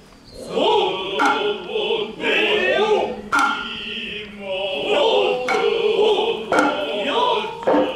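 Noh chant (utai), sung in long bending phrases, with sharp strokes from the Noh hand drums and stick drum (kotsuzumi, ōtsuzumi and taiko) coming every second or two.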